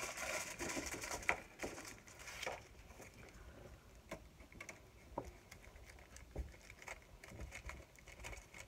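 Aluminum foil crinkling and crackling as it is rolled by hand into a tight, thin rod. The crackle is strongest in the first two seconds or so, then thins to faint scattered ticks.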